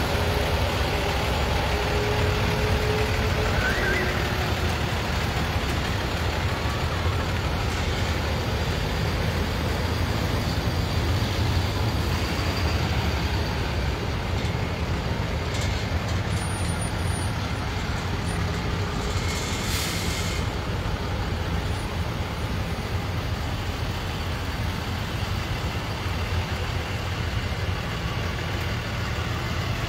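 A line of tow trucks passing: a steady rumble of heavy truck engines and road noise, with a short hiss about twenty seconds in.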